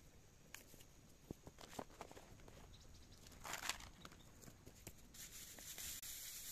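Faint rustling and crinkling of paper and cardboard being laid on dry grass, with light footsteps and scattered small clicks, played fast-forward. A louder rustle comes about three and a half seconds in, and a steady hiss sets in about five seconds in.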